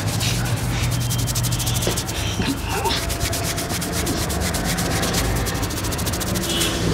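Fingers rubbing and scratching through hair on the scalp during a head massage: a crackling rustle of many quick, faint scratches.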